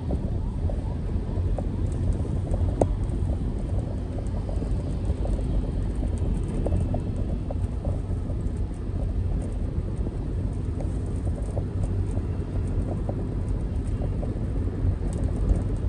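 Vehicle on the move along a city road: a steady low road-and-engine rumble with many short, faint clicks and rattles.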